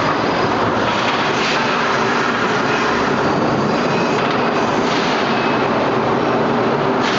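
Loud, steady machinery din of a hot-forging press shop, an even noisy rush with a faint hum beneath and no distinct press blows standing out.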